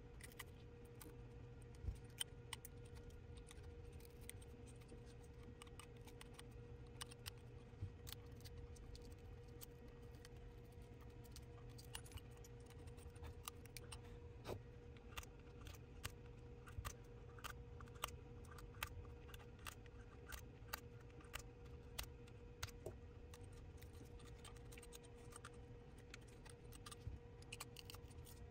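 Faint, irregular scraping and clicking of a metal blade scraper chipping laser-loosened broken back glass off an iPhone 12 Pro Max housing, glass fragments ticking as they come away, over a faint steady hum.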